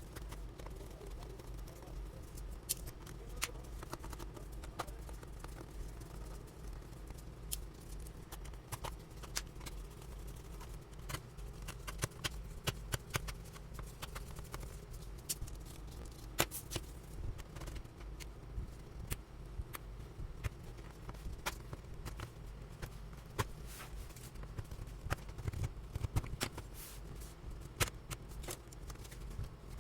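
Irregular small clicks and taps of hands and tools handling a laptop, over a steady low hum.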